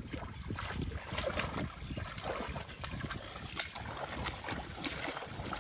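Bare feet splashing and sloshing through shallow, muddy rice-paddy water in short irregular strokes, over a steady wind rumble on the microphone.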